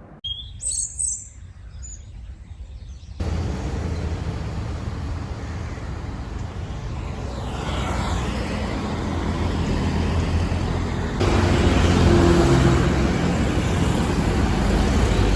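A few faint bird chirps, then from about three seconds in the steady noise of road traffic with engines running, which gets louder about eleven seconds in.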